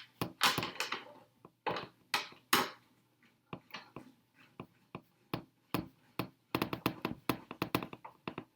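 Irregular sharp clicks and taps of hard plastic parts and small hardware being handled and fitted while screws are driven into an RC truck's body mounts, coming faster near the end.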